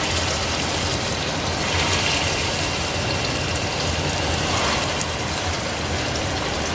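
Raw meatballs frying in hot olive oil in a pot: a steady, dense sizzle and crackle, with a brief louder flare of sizzling about four and a half seconds in.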